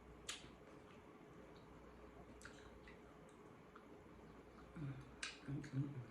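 Close-up eating sounds: a few sharp wet mouth clicks and smacks from chewing, spread out, with a short low voiced hum near the end.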